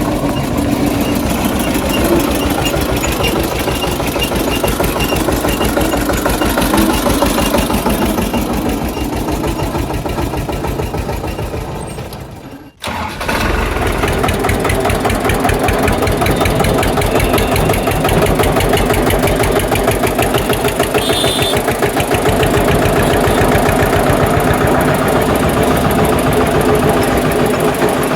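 Tractor engine running steadily with a fast, even beat; about halfway through it fades away, cuts out for a moment and then starts up again.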